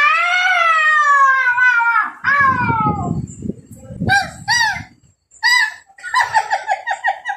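A man imitating a rooster with his voice: a long drawn-out crow falling slightly in pitch, a second shorter crow, then a few short calls and a quick run of clucks near the end.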